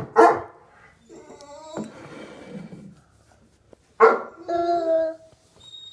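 A toddler's fake sneeze about four seconds in: a sharp burst of breath, then a voiced "choo". Before it come some small vocal sounds and breathy noise.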